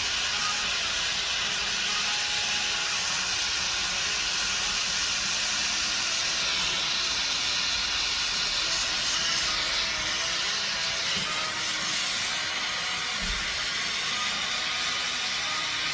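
Gas brazing torch flame hissing steadily while joining the refrigerant lines of an evaporator.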